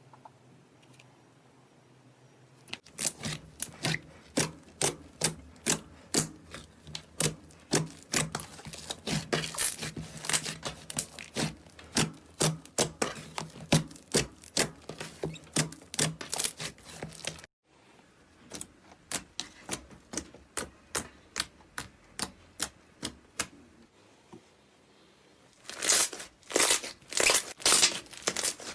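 Slime being squeezed and poked by hand, giving a quick run of sharp crackles and pops, several a second. It starts about three seconds in, breaks off suddenly past the middle, and comes back louder near the end.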